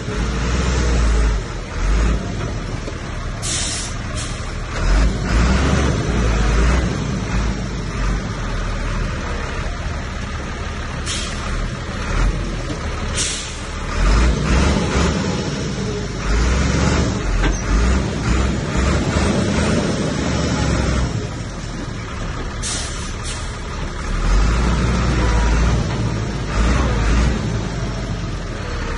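Heavy diesel earthmoving machinery working, a Komatsu bulldozer among it: the engine runs steadily, rising and falling with the load. Short, sharp high-pitched hisses or squeals come several times, twice close together.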